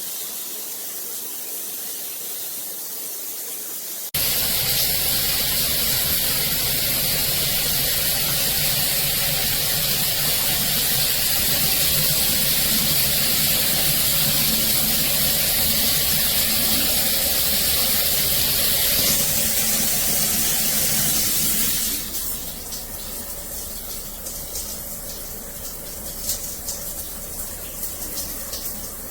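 Water spraying from a shower faucet set's outlet with a steady hiss. About four seconds in the flow suddenly gets louder and fuller, and it drops back to a quieter hiss near 22 seconds in.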